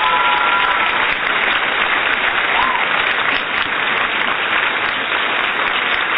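Simulated studio-audience applause, a dense steady clapping with a long whistle at the start and a short whistle a little before the middle.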